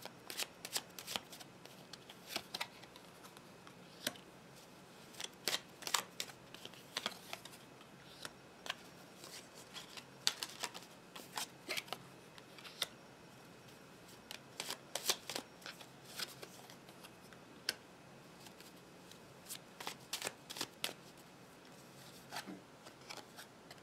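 Paper tarot cards being handled and laid down on a wooden tabletop, making a quiet run of irregular sharp clicks and snaps.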